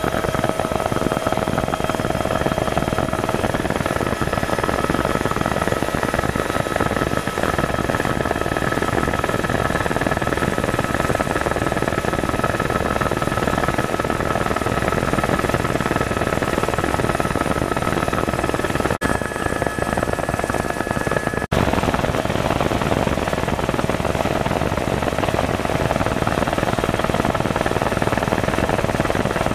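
Tour helicopter's turbine engine and rotors running steadily in flight, a constant din with a few held tones in it. The sound briefly cuts out twice about two-thirds of the way through.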